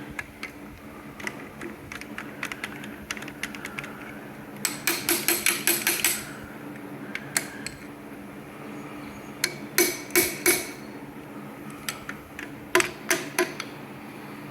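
Light hammer taps on metal engine parts to knock a part loose: a quick run of about eight sharp taps, then two short groups of three.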